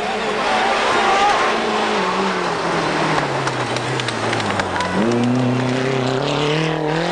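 Rally car engine on a gravel stage: its note falls steadily as the car slows, then about five seconds in jumps up and climbs as it accelerates hard, over a hiss of tyres and gravel.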